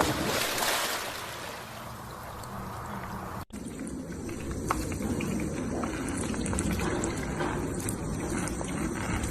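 Water running and splashing, a steady hiss loudest in the first second, cut off about three and a half seconds in by a second stretch of lower, rougher noise with a few small knocks.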